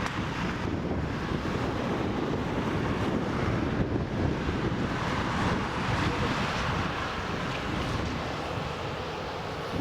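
Bombardier Global Express business jet taking off, its twin Rolls-Royce BR710 turbofans at takeoff power giving a steady rushing noise, with wind buffeting the microphone.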